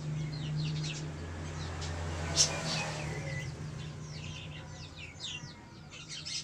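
Birds chirping again and again in short, quick calls over a steady low hum, with one sharp click about two and a half seconds in.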